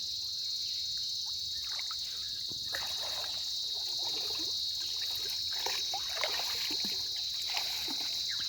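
A steady, high-pitched chorus of insects, likely crickets, with irregular water splashing and sloshing starting about three seconds in.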